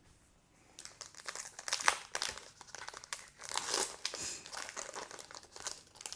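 Foil Pokémon booster pack wrapper being crinkled and torn open by hand: a dense run of crackles starting about a second in, with one sharp, loud crackle near two seconds.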